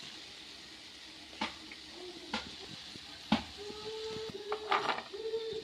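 Sweet corn being stirred in a pan over a steady low sizzle, with a few sharp clicks of the spoon against the pan and a faint steady tone in the second half.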